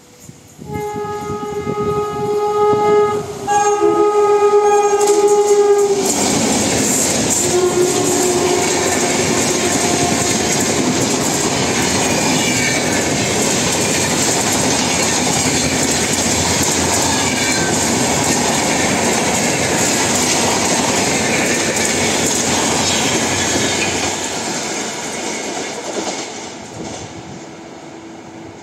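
Indian Railways express train at top speed: the locomotive sounds two long horn blasts, then the coaches run past with a loud steady rush and clatter of wheels over the rails, fading away near the end.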